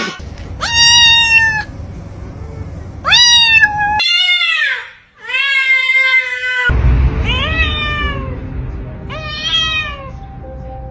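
A kitten meowing repeatedly: about six high-pitched meows, each rising sharply in pitch then falling away.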